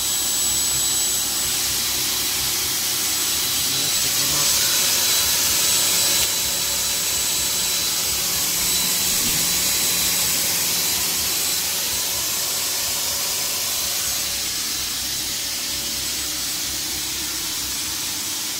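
Electric air pump blowing air through a hose into the low-pressure inflatable floor of a PVC boat: a steady rushing hiss with a thin high whine. It gets a little louder about four seconds in and steps down slightly about six seconds in.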